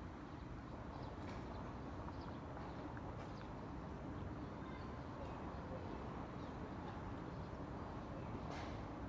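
Steady outdoor background rumble with faint short high chirps scattered through it, and a few brief scratchy sounds near the end.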